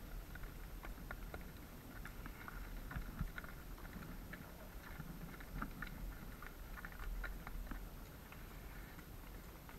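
A horse walking at a gentle pace: irregular light clops and ticks of its hooves on the ground, over a steady low rumble.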